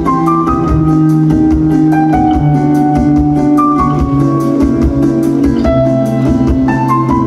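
Dance music playing: a keyboard melody over held bass notes and a steady beat.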